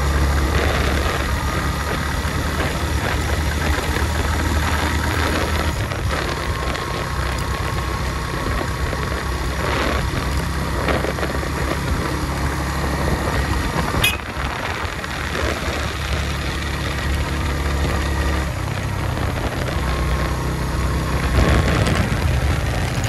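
Suzuki GS150 motorcycle's single-cylinder four-stroke engine running while ridden, its note shifting a few times with the throttle, over a steady rush of wind and road noise. A sharp click sounds once about fourteen seconds in.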